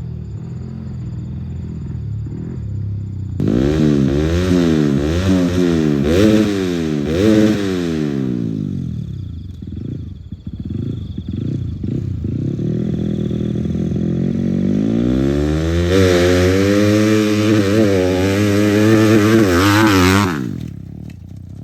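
Grasstrack racing motorcycle engine idling, then revved hard in a series of quick throttle blips, pitch swinging up and down. It settles back to a lower idle midway, is blipped again in a second run of revs, and drops away near the end.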